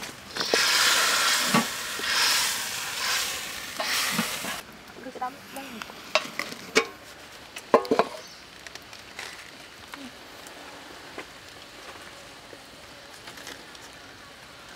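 Sauce sizzling and bubbling in a steel wok over a charcoal fire for about four seconds, then cutting off suddenly. A few sharp metal clinks and knocks follow from an aluminium steamer pot.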